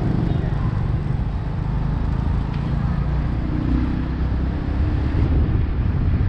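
Street traffic and motorbike engine noise heard from a moving motorbike, with wind rumbling on the microphone. It is a steady low rumble with no single event standing out.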